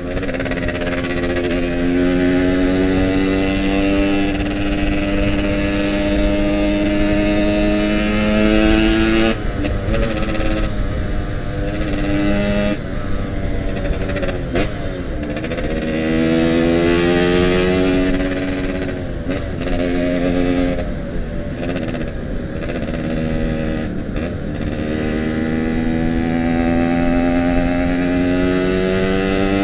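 Yamaha RX-King's 135cc two-stroke single-cylinder engine under way, its pitch climbing steadily as it pulls through the gears. The pitch drops sharply about a third of the way in and again near the middle, then climbs again.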